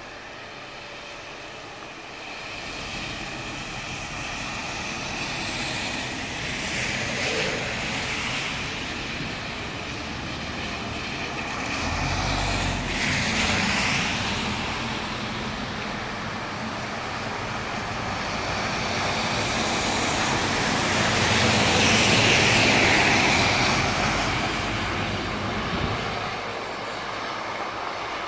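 Traffic passing on a rain-soaked road: tyres hissing through the water as vehicles go by, swelling and fading several times and loudest about two-thirds of the way in. A deeper engine rumble from a heavy truck comes in about twelve seconds in.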